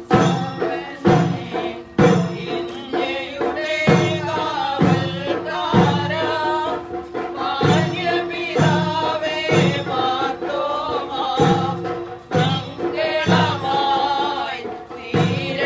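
A group of voices singing a hymn together, over a drum beat struck about once a second.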